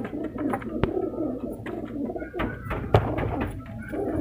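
Sherazi pigeons cooing in a loft, a continuous low murmur of several birds, with a few sharp knocks or clicks about one, two and a half and three seconds in.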